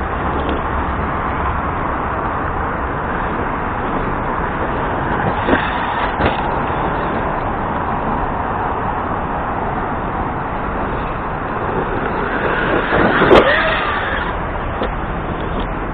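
Arrma Kraton RC truck's BLX brushless motor whining up and down in pitch as it is driven, twice, over a steady background hiss. Sharp knocks come a little after each run-up, the loudest about 13 seconds in.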